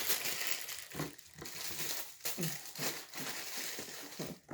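Crinkling and rustling of paper or plastic packaging being handled, in uneven bursts.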